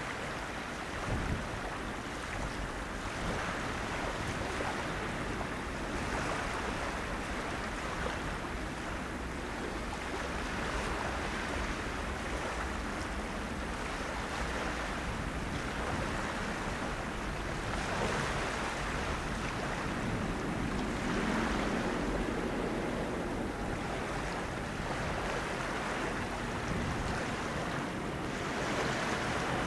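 Steady, gusting rush of wind on the microphone with the distant rumble of a Boeing 777-200 airliner's jet engines on final approach, growing slightly louder near the end.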